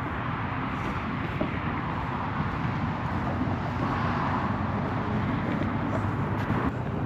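Steady road traffic noise of cars on a nearby roadway, swelling around the middle and dropping off suddenly near the end.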